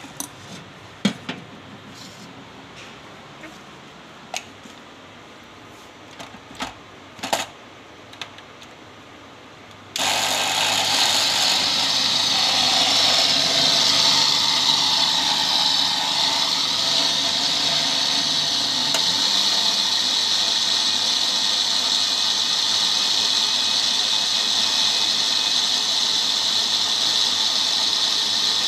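A few clinks and knocks of a steel ladle and lid against a blender jar, then about ten seconds in a Panasonic blender switches on abruptly and runs steadily, grinding soaked rice in milk.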